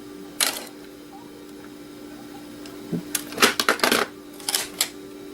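Shards of a shattered glass hard-drive platter clinking and rattling as they are handled. There is a single clink about half a second in, then a dense run of sharp clicks from about three to five seconds in, over a steady low hum.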